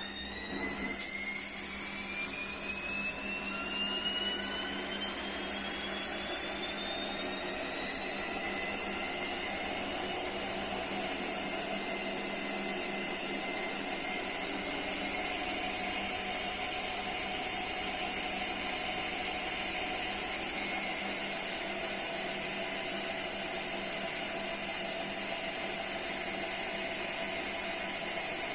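Gorenje WaveActive washing machine motor whining as the drum speeds up, several whine tones rising in pitch over roughly the first ten seconds and then holding steady under a constant mechanical hum. The uploader calls the motor sound horrible.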